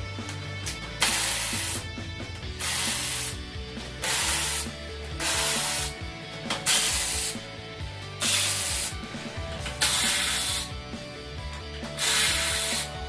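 Socket ratchet wrench clicking in eight quick runs about a second and a half apart, each run a back-stroke between turns as bolts on a hybrid battery pack are loosened.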